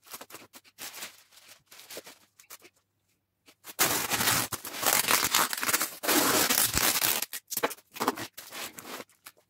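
Clear cellophane wrap around a gift hamper crinkling and rustling as it is handled and folded. It comes in broken bursts, drops away around three seconds in, and is loudest and most continuous from about four to seven seconds in.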